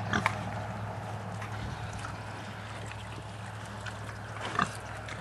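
A few wet, squelching footsteps in soft mud, over a steady low hum.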